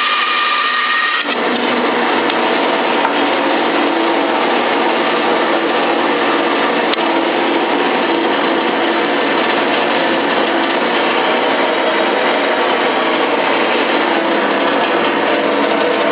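Davis & Wells 20-inch bandsaw running, then cutting wood from about a second in, a steady rough sawing noise through the cut.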